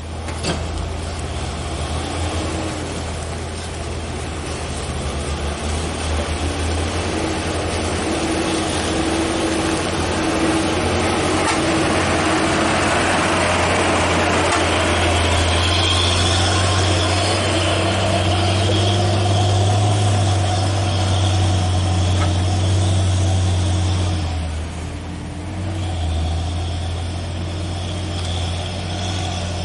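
Heavy truck's diesel engine running steadily under load, with a deep low hum and some higher tones over road noise; the sound dips briefly about 25 seconds in, then picks up again.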